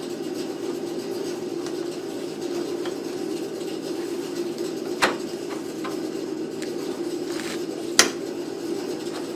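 Metal rear drum-brake hardware (shoes, springs and clips) clinking and tapping as it is handled and fitted, with a sharp clink about five seconds in and a louder one about eight seconds in, over a steady low hum.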